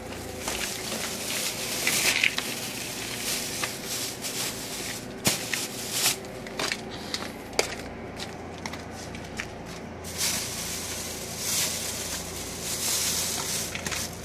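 Large plastic sacks rustling and crinkling as they are carried on the shoulder and handled, with scattered knocks and footsteps. A steady low hum runs underneath.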